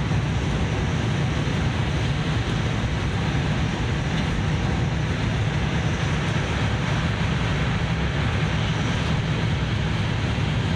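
Steady running noise inside the cabin of a Tohoku Shinkansen Hayabusa train at speed: an even low rumble with a hiss of air and wheels on rail.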